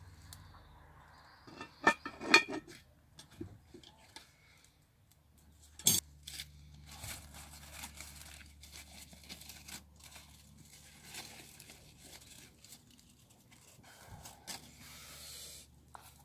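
Cast iron Dutch oven lid clanking against the pot twice about two seconds in, the second time with a short metallic ring, and a sharp knock about six seconds in. Scattered rustling and small crackles follow.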